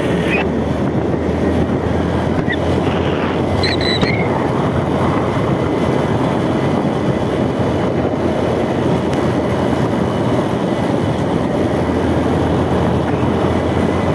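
Wind rushing over the microphone of a moving motorcycle, with its engine running steadily underneath at a constant speed.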